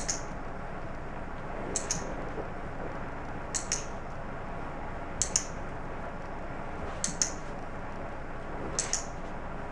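Handheld dog-training clicker clicked about every two seconds, six times, each click a quick double snap, marking the dog's correct position on its perch before each treat.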